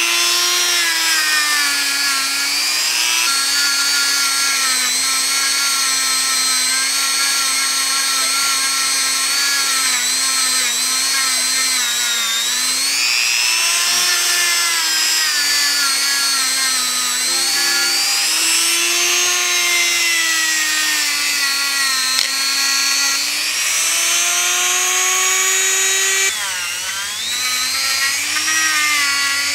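Dremel rotary tool spinning a wire brush against a cast aluminum skull to polish it: a continuous motor whine whose pitch wavers up and down, over the hissing scrape of the wire bristles on the metal. Near the end the whine briefly drops in pitch and level, then picks back up.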